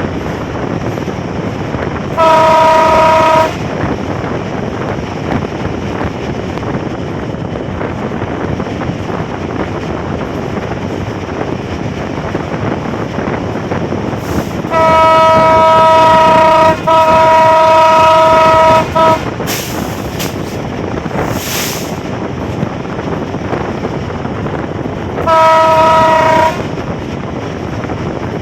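Nilsagar Express train running at speed with steady rumbling rail noise, its horn sounding a three-note chord four times: a short blast a couple of seconds in, two long blasts back to back about halfway, and another short blast near the end.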